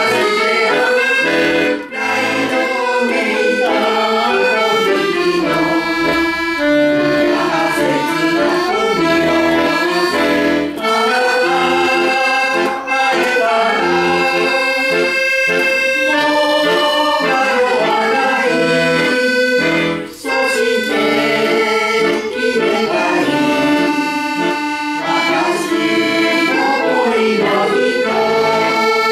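Accordion playing a song melody over chords, with brief breaks between phrases about two seconds in and again about two-thirds of the way through.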